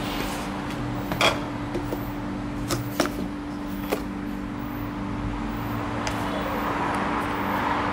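A few sharp clicks and taps of seasoning containers and utensils being handled, over a steady low hum, with a soft hiss building near the end.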